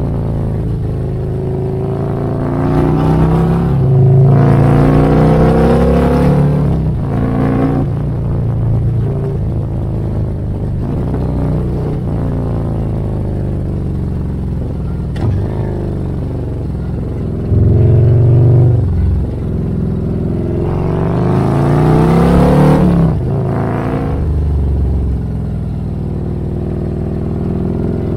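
Harley-Davidson touring motorcycle's V-twin engine under way, heard from the rider's seat. It pulls up in pitch several times as the throttle opens and eases between pulls. The strongest pulls come a few seconds in and again near the end.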